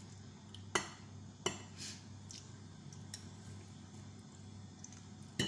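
Metal forks clinking and tapping against a plate while tossing and lifting noodles: two sharp clinks within the first second and a half, a few lighter taps after, and another sharp clink at the very end, over a faint steady low hum.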